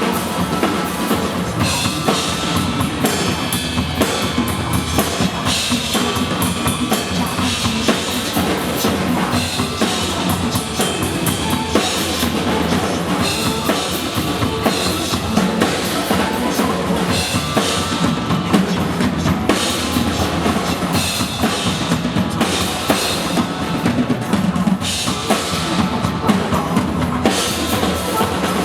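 Music with a drum kit playing, bass drum and snare drum hits in a dense, steady rhythm.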